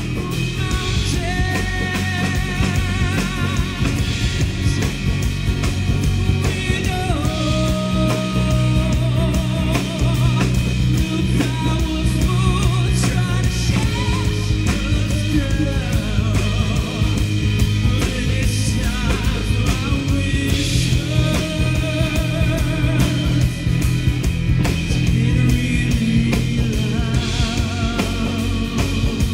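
Rock song playing, with drums, bass and guitar under a wavering melodic lead line.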